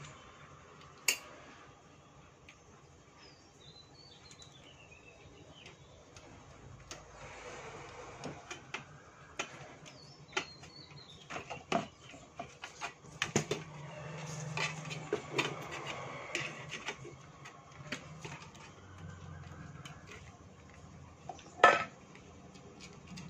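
Clicks, knocks and rattles of a car stereo's metal chassis and plastic parts being handled and fitted back together, with a sharp knock about a second in and a louder one near the end.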